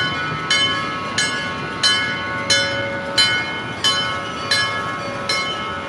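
Japanese railway level-crossing alarm ringing its repeated 'kan-kan' bell, one clear ringing strike about every two-thirds of a second; it stops near the end.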